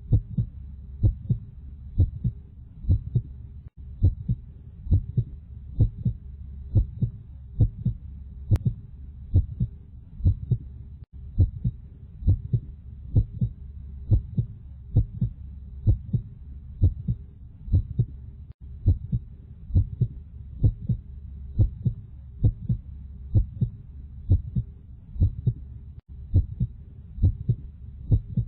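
Recorded human heartbeat: a steady double thump (lub-dub) about once a second over a low hum, with a brief dropout roughly every seven seconds.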